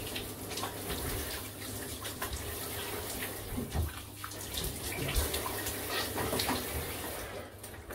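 Shower spray running steadily onto a person's head and back and splashing onto a tiled shower floor, with small irregular splashes.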